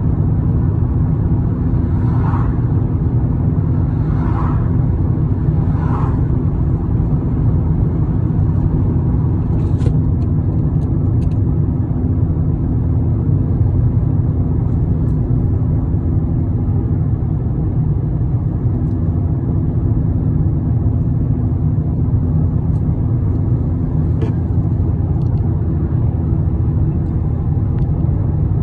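Steady low rumble, with three short higher-pitched sounds about two seconds apart near the start.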